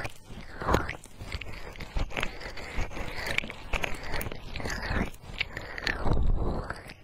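Fingers rubbing and cupping the soft ears of a binaural microphone: close, scratchy rustling strokes in an uneven rhythm, with a deeper, muffled swell about six seconds in.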